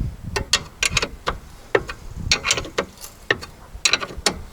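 Ratchet wrench clicking in short runs of quick strokes while tightening nuts on a car's rear suspension strut.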